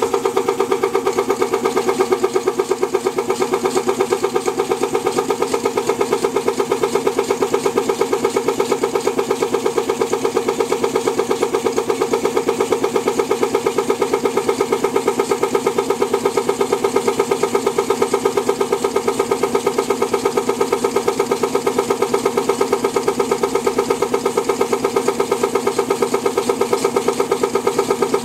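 Late-1930s McCormick-Deering single-cylinder milker vacuum pump, driven by a half-horsepower Wagner electric motor, running steadily and pulling vacuum, with a fast, even pulse from each stroke of its piston.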